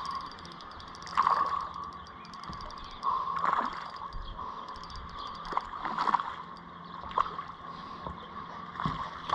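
A hooked snapper thrashing and splashing at the water surface on the line, a short splash every second or two.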